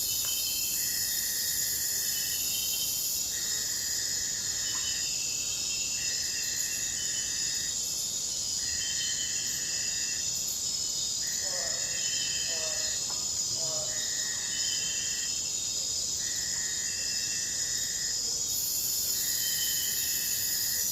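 Forest ambience: a dense, steady chorus of insects, through which one high call repeats in even pulses about every two seconds. A few brief lower chirps come about midway.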